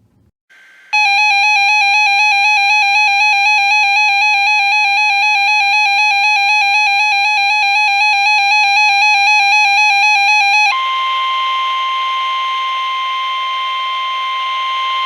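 Emergency Alert System alert tones. A loud, buzzy, rapidly pulsing electronic alarm tone sounds for about ten seconds, then switches to a steady single tone at a higher pitch for the last few seconds. Together they signal an incoming flash flood warning.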